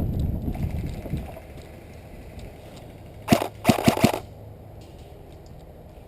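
Airsoft gun firing: one sharp crack about three seconds in, then a quick run of three more half a second later. Before them, low rustling of movement fades out about a second in.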